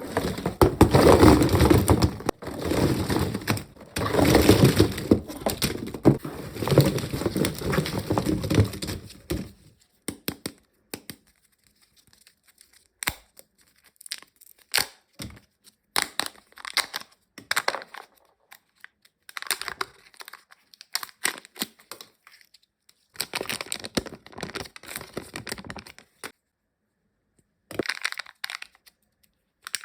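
Plastic wrapping of a Kinder Joy egg being torn open and crinkled, loud and continuous for about the first nine seconds. After that come scattered short crackles and clicks as the packaging is handled and opened.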